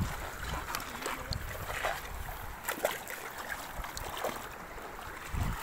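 Shallow seawater washing among shore rocks, with short splashes as a hooked fish thrashes at the surface.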